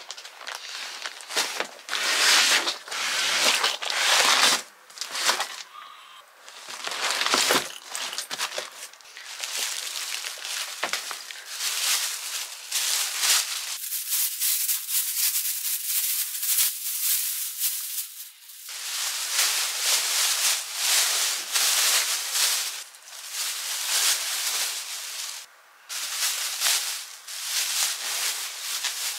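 Rustling and crinkling, as of plastic or packaging being handled, in repeated bursts of a few seconds each, with a thinner, higher hiss for a few seconds around the middle.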